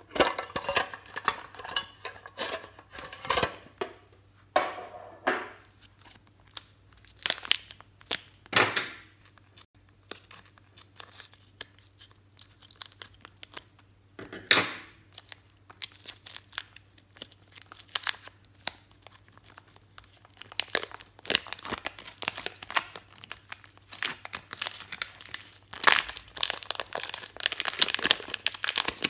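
A thin plastic zip-lock bag and plastic packaging crinkling in irregular bursts as hands handle them and pull glossy slime out of the bag, the crackle busiest near the end.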